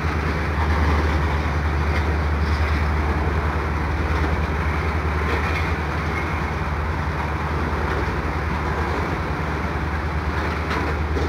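Freight train's tank cars and covered hopper rolling past: a steady low rumble of steel wheels on rail, with a few faint clicks.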